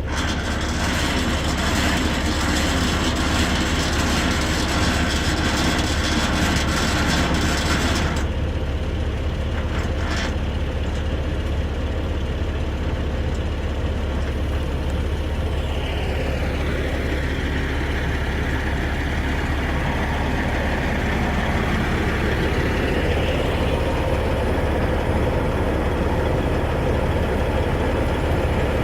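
Heavy diesel engine of a Freightliner Classic semi-truck running steadily with a deep, constant rumble. A bright hiss over it stops about eight seconds in, and in the second half the engine note rises slowly and falls again.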